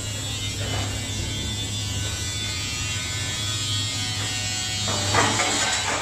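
Steady electric hum of a scrap-metal baler's motor-driven hydraulic power unit running, with a hiss over it. A rougher, noisier stretch joins in about five seconds in.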